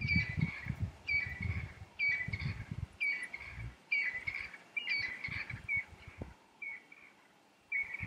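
A bird at dusk repeating a short, whistled call about once a second. Bursts of low rumble sit under it for the first six seconds, then drop away.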